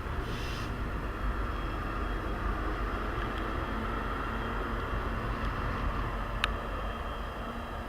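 Steady rumble of a train rolling past, with one brief sharp click about six and a half seconds in.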